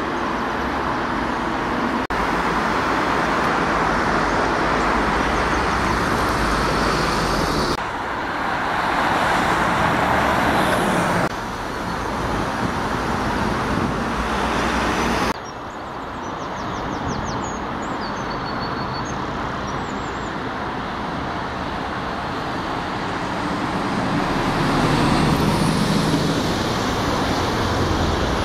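Road traffic noise from buses and cars driving through a junction, mostly engine and tyre noise, with abrupt changes where the clips cut. Near the end a Scania double-decker bus's diesel engine grows louder as it approaches.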